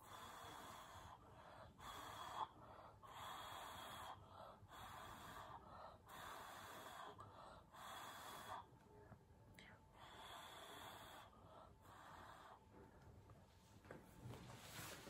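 Faint, repeated puffs of breath from someone blowing by mouth across wet poured acrylic paint, about one a second, pushing the paint over the surface as in a Dutch pour. The puffs grow weaker after about nine seconds.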